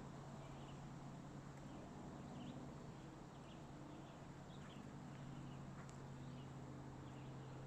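Faint outdoor ambience with scattered short, high bird chirps and a steady low hum underneath.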